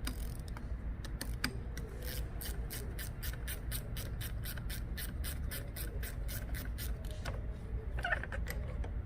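Ratchet handle with a 10 mm socket clicking in fast, even strokes, about five a second, as it works the nut on a car battery's positive terminal clamp.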